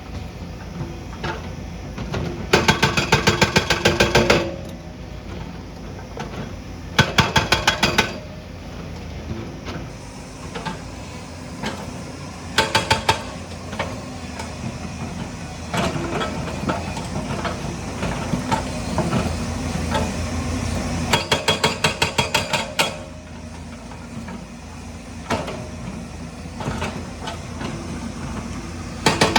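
Hydraulic stone breaker on a JCB machine hammering in short bursts of rapid, evenly spaced blows, about five bursts in all. Between the bursts a diesel engine runs steadily.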